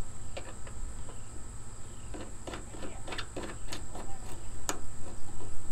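Scattered small metal clicks and taps as a 3/8-inch antenna stud mount and its washers are fitted and threaded by hand onto a door-edge antenna mount, over a steady high-pitched whine.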